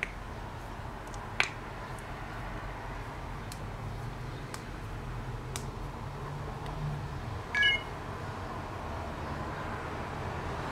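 Quiet room tone with a steady low hum, broken by a sharp click about a second and a half in, a few faint ticks, and a short high squeak about seven and a half seconds in.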